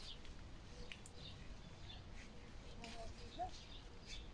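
Faint rural ambience: scattered short bird chirps over a low, steady rumble, with a faint distant voice about three seconds in.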